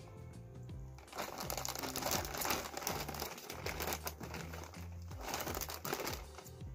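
Glossy plastic mailer bag crinkling as it is handled, over background music.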